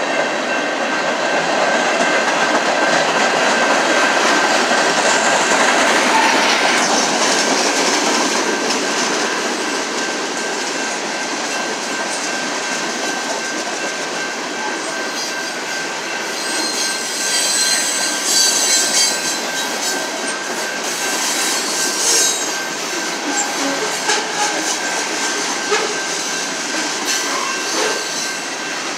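Freight cars (covered hoppers and tank cars) rolling past at speed: a steady rumble and rattle of steel wheels over the rails, with high-pitched wheel squealing from about 16 to 19 seconds in and again briefly a few seconds later.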